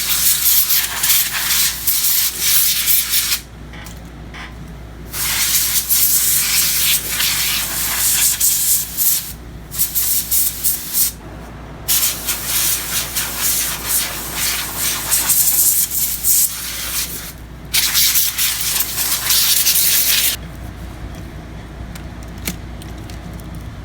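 Compressed air duster spraying in long hissing bursts with brief pauses, blowing out a laptop keyboard. It stops about twenty seconds in.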